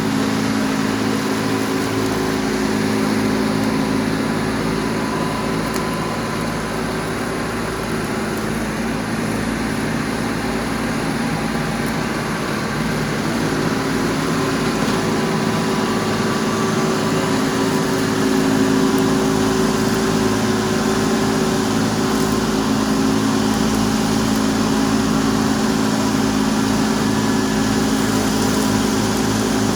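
Engine of a tracked stump grinder running steadily at working speed, its pitch holding through.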